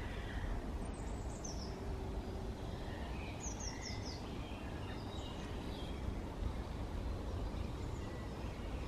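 Songbirds calling faintly over a steady low outdoor rumble. There are scattered high chirps, with a quick run of four short descending notes about three and a half seconds in.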